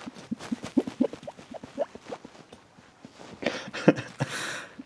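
A man laughing hard and nearly silently: short breathy gasps and squeaks, with louder laughs near the end.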